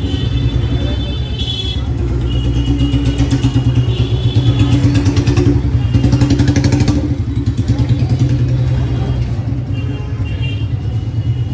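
A motor vehicle engine running close by, a steady low hum whose fast pulsing grows louder through the middle and eases off near the end.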